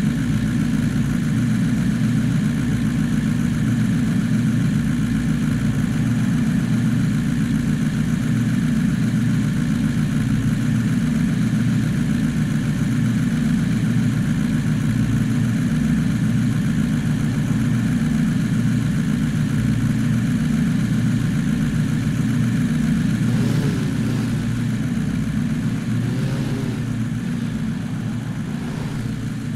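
Vehicle engine running steadily, a continuous low drone; it eases off a little about three-quarters of the way through.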